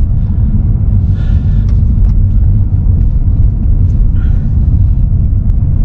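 Car driving along a snow-covered road, heard from inside the cabin: a loud, steady low rumble of engine and tyres on snow, with a few faint ticks.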